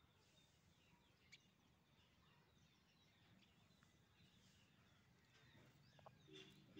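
Near silence: a faint background with scattered soft bird chirps and a single faint tick just over a second in.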